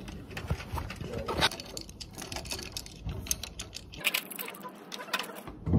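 Irregular clicks, taps and rustling from the camera being handled close up, with the handling rumble dropping away about four seconds in.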